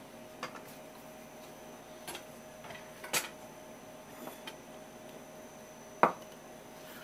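A few light clicks and knocks of hands handling things on a wooden cutting board, the loudest a deeper knock about six seconds in as a porcelain plate is moved on the board, over a faint steady hum.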